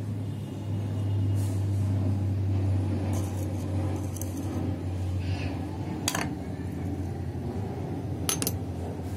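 A steady low hum, like a small motor running, with sharp metallic clinks about six seconds in and twice in quick succession near the end as the hardened steel hooks are handled.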